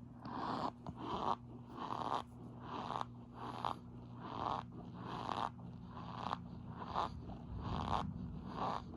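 Packed pink cornstarch squeaking and crunching in short, even strokes, a little more than one a second, over a steady low hum.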